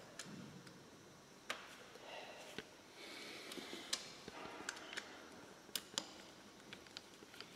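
Faint, irregular metallic clicks of a hand socket ratchet wrench working a crash-bar mounting bolt, with some soft rustling of hands on the tool.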